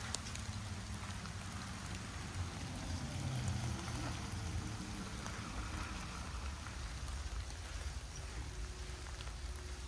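Light rain falling steadily, an even patter of drops, with a low rumble underneath.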